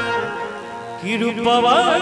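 Live Bhojpuri stage-show music over a PA: the drumming stops at the start, leaving held accompaniment notes, and about a second in a male singer comes in with a wavering, ornamented sung line.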